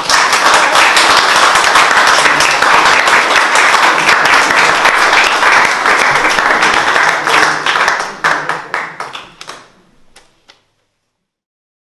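Small audience applauding: dense clapping that thins to a few scattered claps about eight seconds in and stops about two seconds later.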